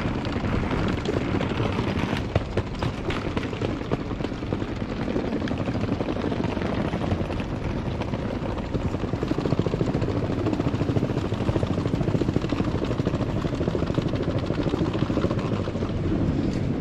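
Hard plastic wheels of rolling suitcases rattling steadily over brick and tile paving, a fast, continuous rumbling clatter.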